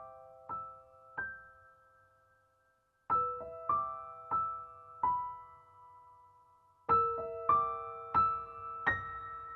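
Background music: a slow, sparse piano melody, a few notes at a time that ring out and fade, in three short phrases with pauses between.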